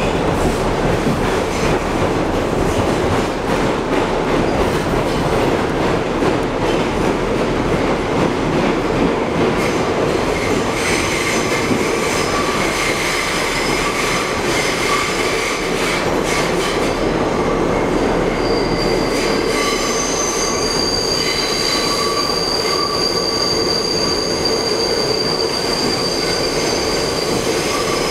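Inside a New York City subway car (R62A, 1 train) running through a tunnel: a steady loud rumble and clatter of wheels on rail. From about halfway, thin high squealing tones from the wheels join in, highest and most prominent in the last third.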